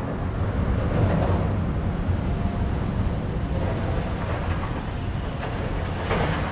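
Steady city street ambience: a continuous low rumble of traffic.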